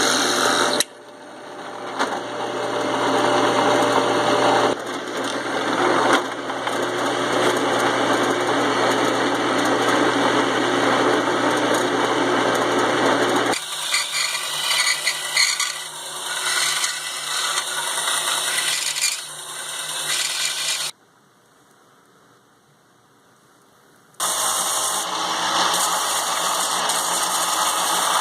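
Power tools running on 3/8-inch plywood in several cut-together takes: a steady, loud machine noise that changes character about halfway through, stops for about three seconds near three-quarters of the way in, then starts again.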